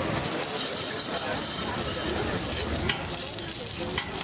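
Food sizzling on a large iron griddle (tawa) at a busy dosa stall, a steady frying hiss, with a few sharp clicks about three and four seconds in.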